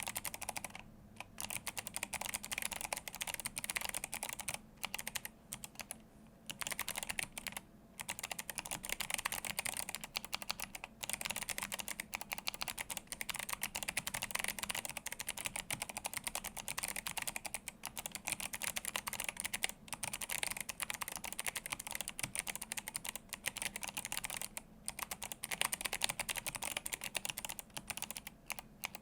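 Continuous typing on an Atreus62 handwired mechanical keyboard with clicky Kailh Box Jade switches and blank PBT keycaps: a dense stream of sharp key clicks, broken by a few brief pauses.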